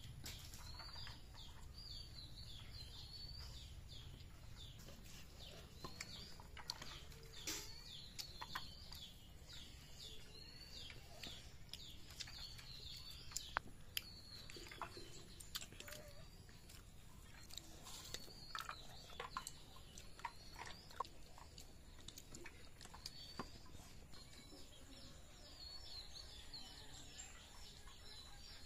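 Small birds chirping over and over in short, quick calls. Scattered sharp clicks and clinks of steel plates and tumblers come through as people eat by hand, the loudest a pair about halfway through.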